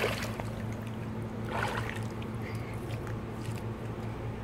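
Pool water sloshing and dripping as a person climbs out over the edge onto the deck, with one brief slosh about a second and a half in. A steady low hum runs underneath.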